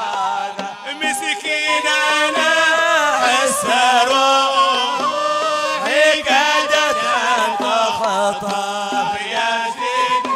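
A man singing an Arabic religious qasida (inshad) in Hadhrami style, with long ornamented notes that glide up and down.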